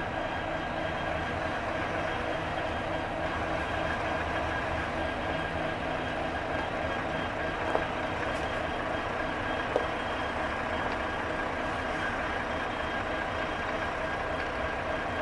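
Idling diesel locomotive together with a fuel tanker truck's diesel engine running as the truck creeps up beside it to refuel it: a steady engine hum with a faint constant whine. Two short clicks sound about two seconds apart near the middle.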